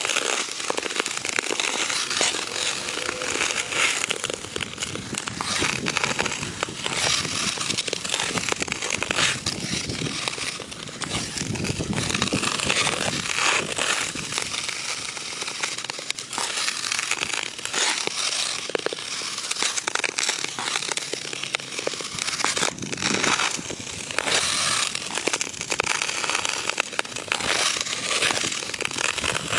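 Hockey skate blades scraping and carving across hard outdoor ice, heard close to the ice as a continuous crackling hiss that swells and dips with the strides.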